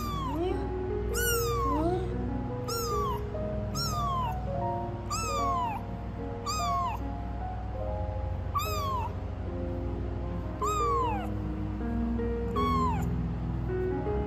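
A kitten meowing over and over, about nine meows roughly a second and a half apart, each sliding down in pitch. Background music plays under the meows.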